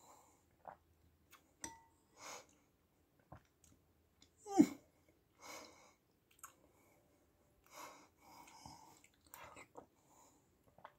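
Someone eating chicken noodle soup from a metal spoon: quiet slurping, chewing and breathing, with a few short clicks of the spoon against the bowl.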